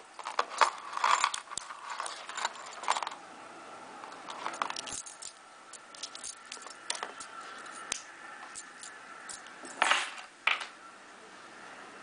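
Metal split ring on a paracord lanyard jangling and clinking as it is handled, with scattered small clicks and two louder clinks near the end.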